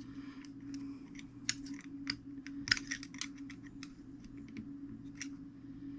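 Irregular small metallic clicks and ticks from handling the brass wire and parts of an antique fusee clock's movement, over a steady low hum. The wire is tangling on the fusee cone as one line crosses another.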